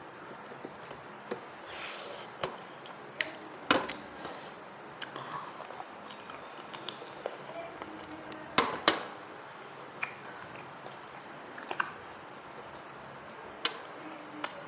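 A person eating, with scattered sharp clicks and knocks of food and dishes; the loudest come as two knocks close together about two-thirds of the way through.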